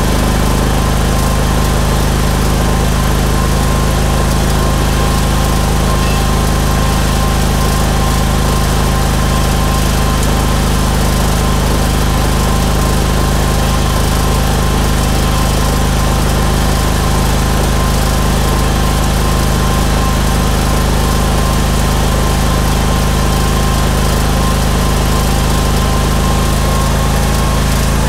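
Small engine of a Steel Green spreader-sprayer running at a steady speed, with a constant hum and no change in pitch.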